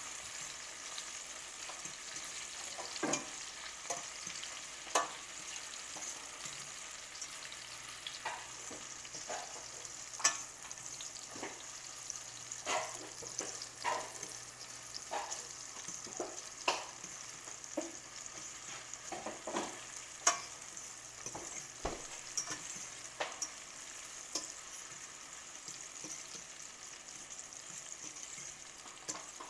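Sliced onions and green bell peppers sizzling in oil in a stainless steel skillet, with a steady high hiss. A metal fork stirring them scrapes and taps against the pan at irregular moments, every second or two.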